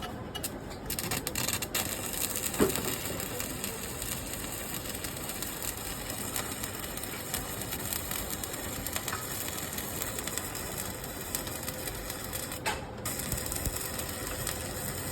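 Electric arc welding with a Prescott Eco 200 welding plant: the arc crackling steadily, with a sharp click about two and a half seconds in.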